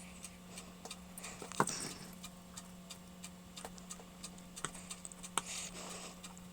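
Faint, irregular small clicks and ticks of fingers fiddling a tiny antenna connector onto a Wi-Fi card's socket, with a steady low hum underneath; two sharper clicks come about a second and a half in and near the end.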